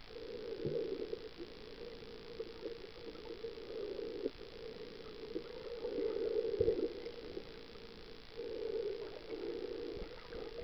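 Muffled underwater noise picked up by a camera in a waterproof housing: a steady dull hum that swells and fades several times, with a few faint clicks.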